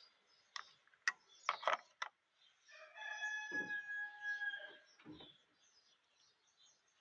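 A rooster crows once: a single pitched call of about two seconds, starting roughly three seconds in. Before it come a few sharp clicks and knocks.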